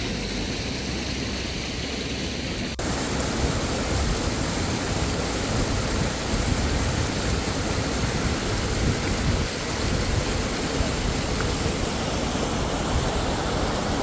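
Steady rushing wind with gusty low rumbling on the microphone.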